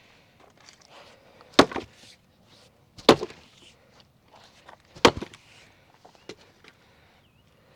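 Three axe strikes splitting red oak firewood, about one and a half to two seconds apart, each a sharp loud crack followed by a short clatter of wood.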